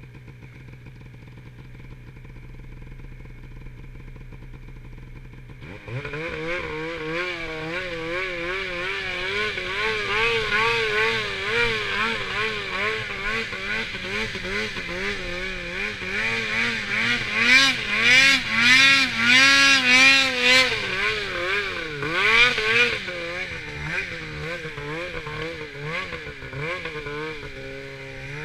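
Polaris RMK snowmobile's two-stroke engine idling, then opened up about six seconds in and run hard up a slope through deep powder, the revs rising and falling over and over under load. It is loudest in the middle and eases off near the end.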